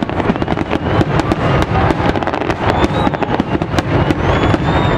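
Fireworks display: a dense, continuous barrage of bangs and crackling from aerial shells, with a few rising whistles in the second half.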